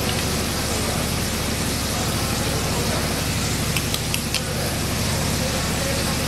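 Onions and capsicum simmering in a pan of watery sauce over a gas flame: a steady sizzle over a low, even rumble, with a few light clicks about four seconds in.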